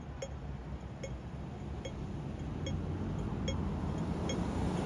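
Low traffic rumble that builds toward the end, with a sharp ticking repeating about every three-quarters of a second.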